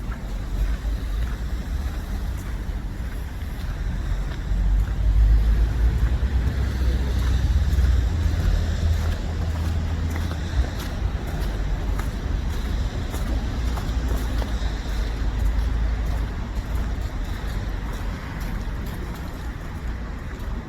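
Street traffic: the steady low rumble of cars, swelling as a vehicle passes about four to ten seconds in.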